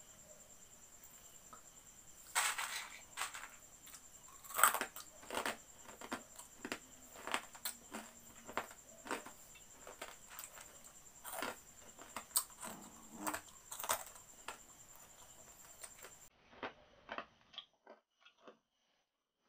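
Crisp fried cornick (fried corn kernels) crunched between the teeth while being chewed: many short, sharp, irregular crunches that stop shortly before the end.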